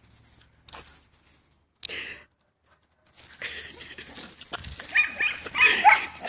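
Dogs fighting, with scuffling and short high-pitched cries. Quieter bursts early on, then a brief lull, then louder, busier scuffling with the cries near the end.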